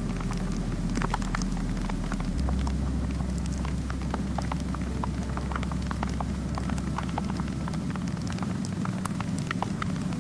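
Wood fire crackling in a fireplace: many small, irregular pops and snaps over a steady low rumble.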